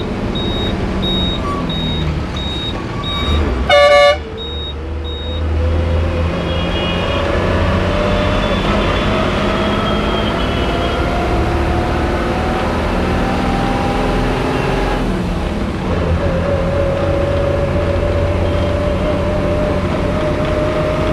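Bus engine heard from inside the cabin, accelerating, with a whine that rises steadily in pitch, drops at a gear change about fifteen seconds in and then rises again. A short loud horn blast about four seconds in, and a high beep repeating about three times a second through the first five seconds.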